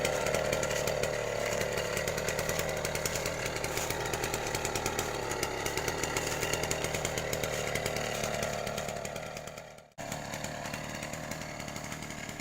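Small two-stroke engine of a STIHL backpack sprayer running steadily at high speed. About nine seconds in it fades and cuts off abruptly, then comes back at a lower level.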